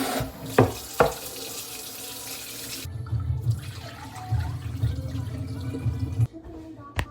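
Water running at a kitchen sink while rice is rinsed and drained in a pot, with two sharp knocks near the start and a low rumble from about three to six seconds in.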